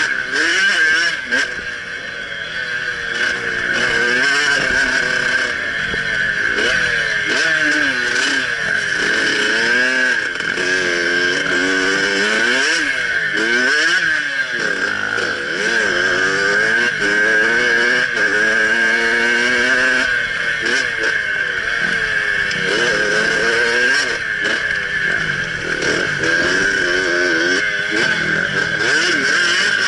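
Yamaha YZ dirt bike's engine being ridden, its pitch climbing and dropping over and over as the throttle is opened and closed.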